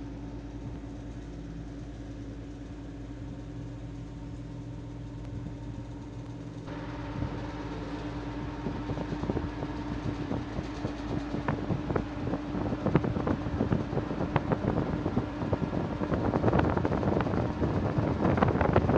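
A steady low hum throughout. From about seven seconds in comes a growing flurry of crackling and rustling, fitting plastic packaging being handled and opened, busiest near the end.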